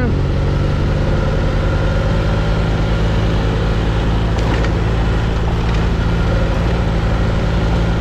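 Adventure motorcycle engine running at a steady speed while riding, with a constant rush of wind and road noise.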